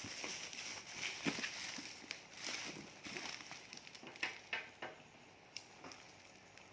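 Rustling and scattered clicks of a fog lamp kit's cardboard box and packaging being handled.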